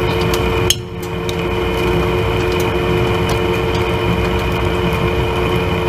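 Monarch engine lathe taking a dry turning cut on a steel shaft sleeve: a steady machine hum with a higher cutting whine over a low rumble, and scattered sharp ticks of chips coming off. The sound drops away sharply just under a second in and builds back up.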